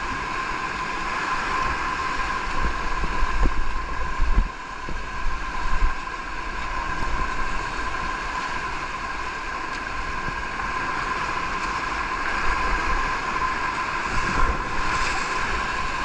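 Whitewater rapids rushing around an inflatable raft, with wind buffeting the microphone in gusts that are strongest a few seconds in.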